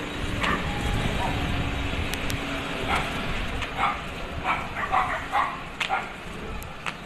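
A dog barking in short bursts, about seven times, over a low steady rumble.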